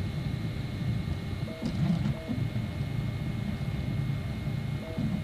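Delta 3D printer's stepper motors running as it prints, a steady low machine hum that shifts with the moves. Short pitched stepper whines come about two seconds in and again near the end.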